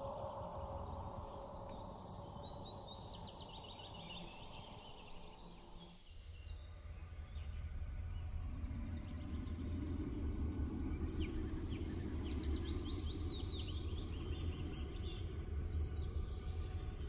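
Birds chirping in quick trills over a steady background noise; about six seconds in the background changes to a low, steady rumble.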